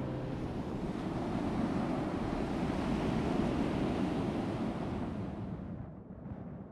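Sea surf washing on a sandy beach: a steady rushing noise that fades out near the end.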